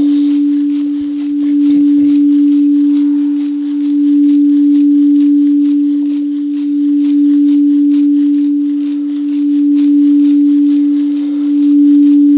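Singing bowl sounding one steady, nearly pure tone that swells and fades gently every few seconds as it is kept ringing for a sound meditation.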